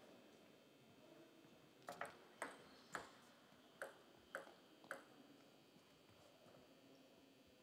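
A table tennis ball bounced six times, in two quick sets of three about half a second apart, as a player readies to serve.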